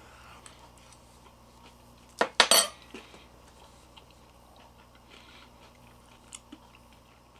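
A metal eating utensil clinking against a bowl twice in quick succession about two seconds in, the second with a brief ring, as a bite is scooped up; a faint click follows near the end.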